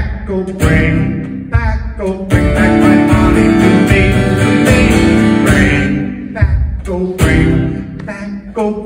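Acoustic guitar strummed in a country-folk style, with a man singing along.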